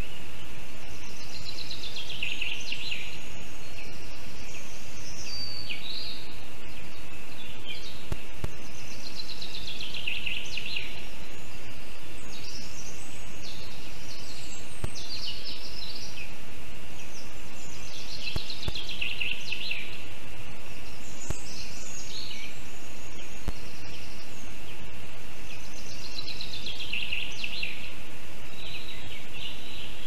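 A songbird in the surrounding forest repeats the same short song about every eight seconds, a fast trill falling in pitch followed by a few shorter notes, over a steady hiss.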